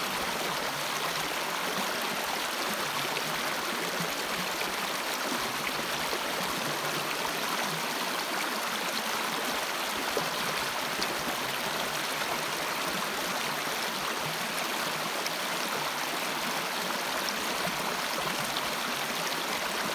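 Shallow rocky stream splashing and rushing over stones in small cascades, a steady, even water noise.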